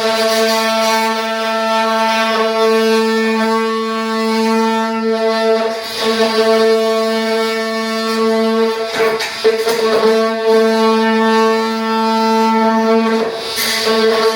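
Oscillating multi-tool running with a steady, high buzzing tone, notching a piece of vinyl plank flooring; the tone dips briefly a few times as the cut goes.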